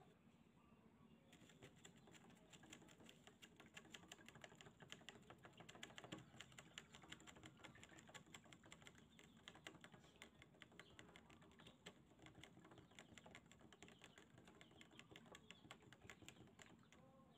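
Faint fizzing of a bubbly liquid in a plastic cup: a dense, irregular crackle of tiny bubbles popping, starting about a second in.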